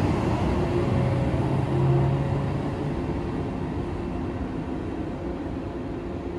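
A train running past on the line and moving away, its rumble slowly fading.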